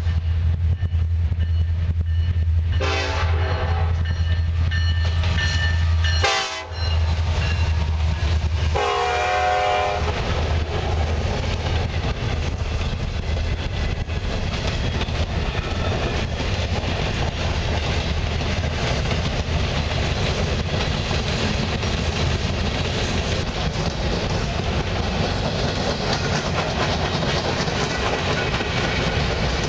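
Freight train passing, led by a CN SD70M-2 and a C40-8M diesel locomotive. The locomotive horn sounds several blasts, about 3, 6 and 9 seconds in, over the deep, steady drone of the diesels going by. After about 9 seconds the drone gives way to the steady rush and clatter of the freight cars' wheels rolling over the rails.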